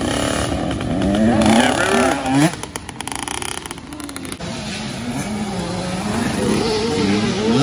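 Small dirt bike engines revving as young riders come down a dirt track, the pitch rising and falling with the throttle. The sound drops away about two and a half seconds in, then another bike's engine builds up again near the end.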